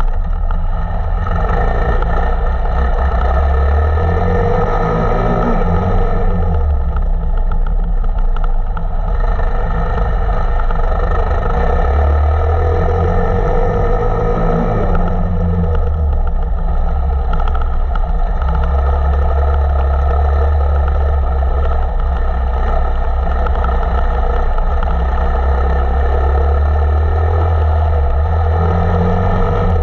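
KTM 525 EXC's single-cylinder four-stroke engine running hard off-road, its revs rising and falling with the throttle several times.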